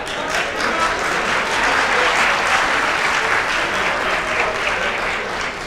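Live theatre audience applauding, the clapping swelling to its loudest in the middle and easing off near the end.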